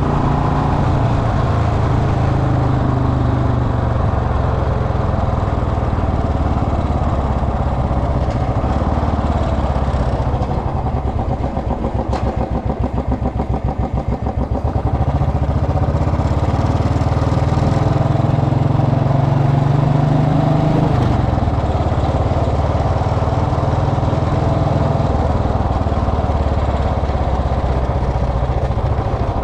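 Royal Enfield Bullet Electra's single-cylinder engine running. It slows about ten seconds in to a slow, even pulse, picks up again around fifteen seconds, and drops back a little after twenty seconds.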